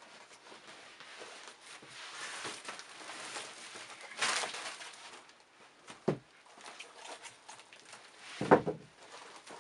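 Used shoes being handled and shifted on a pile: rustling and scraping, with a knock about six seconds in and a louder thump about eight and a half seconds in as shoes are set down.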